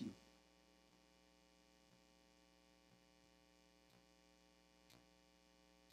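Near silence: a faint steady electrical hum, with a few faint ticks about a second apart.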